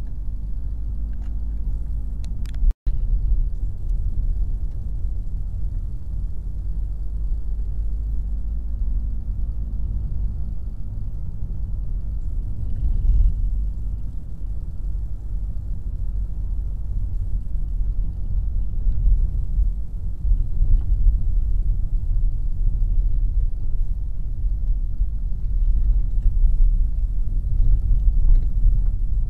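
A car driving along a narrow country lane, heard from inside the cabin: a steady low rumble of engine and tyres, with a few faint clicks and a momentary drop-out of all sound about three seconds in.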